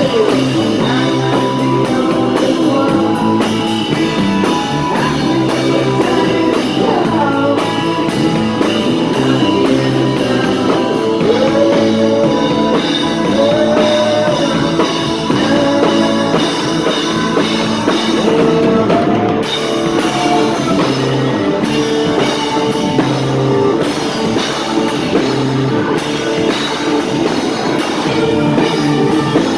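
A rock band playing live, with a drum kit and guitars and some singing, as heard from the audience.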